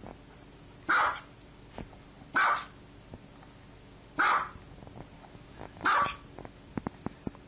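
Small white dog barking: four short, sharp, high-pitched barks, evenly spaced about a second and a half apart.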